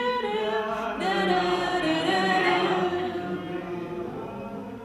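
Unaccompanied singing of a tune on wordless 'do do do' syllables, with held notes, fading somewhat near the end.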